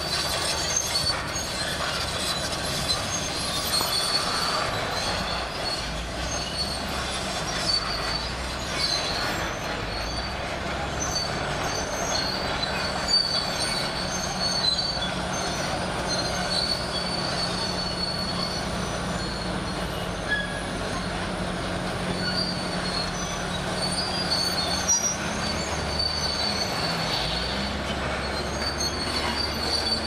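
Shantui SD22 crawler bulldozer working with a diesel engine running steadily under load. Its steel tracks give off intermittent high squeals and clanks as it pushes dirt and rock.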